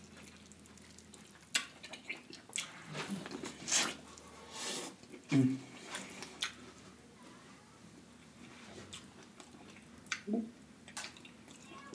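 Close-miked eating of corn on the cob: wet chewing and bites with scattered sharp mouth clicks and smacks, and a couple of short low hums. It goes quieter for a few seconds after about the seventh second.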